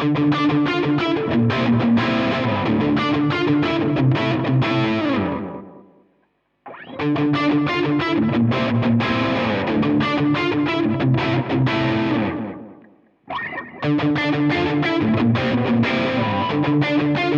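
Suhr Standard electric guitar played through an amp: three passages of picked notes and chords, each stopping briefly before the next begins, at about six and thirteen seconds.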